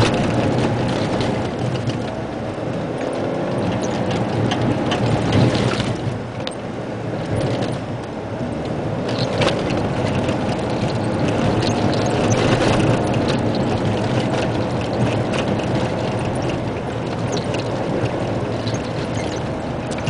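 Isuzu Giga dump truck driving over a rough gravel road, heard from inside the cab: the diesel engine running steadily under constant rattling and clicking as the truck jolts over the stones.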